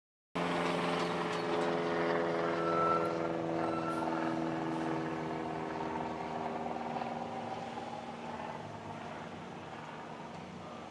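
Burning garbage truck giving off a steady pitched drone that slowly fades out after about seven seconds, over the rushing noise of the fire, with a few faint pops.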